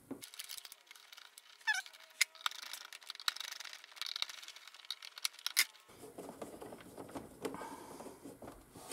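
Faint clicks, taps and rustling of hands working control wires into a mini split's terminal block, with a brief falling squeak about two seconds in and a sharper click near the middle.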